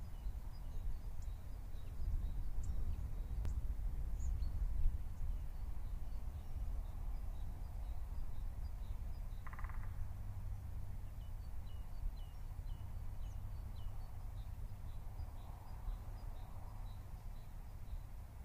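Outdoor ambience: small birds chirping in short, high notes throughout, over a steady low rumble, with one brief lower call about halfway through.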